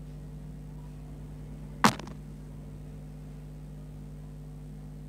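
A single sharp knock about two seconds in, ringing briefly, over a steady low electrical hum.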